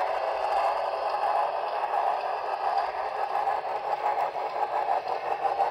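HO-scale model passenger cars rolling past on the track: a steady, fast clatter and rattle of the wheels running along the rails.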